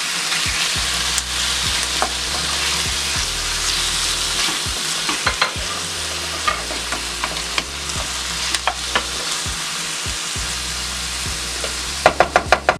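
Diced raw chicken and chopped onion sizzling in hot oil in a ceramic-coated frying pan, stirred with a wooden spoon that scrapes and knocks against the pan, with a quick run of about six knocks near the end.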